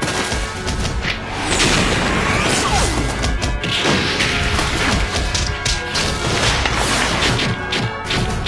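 Dramatic battle music under dubbed fight sound effects for glove puppets: repeated heavy impacts and crashes, with a falling sweep about one and a half seconds in.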